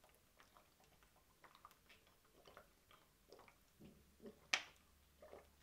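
Faint gulping as water is swallowed from a plastic bottle: a series of soft swallows, with one sharper click about four and a half seconds in.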